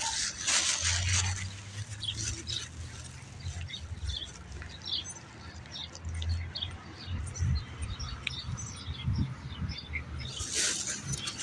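Outdoor ambience: small birds chirping now and then over a low steady rumble, with a brief rush of noise near the start and again near the end.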